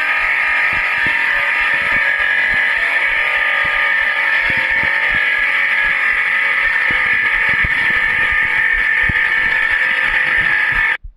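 A loud, steady machine-like noise with a dense whine, which cuts off suddenly near the end.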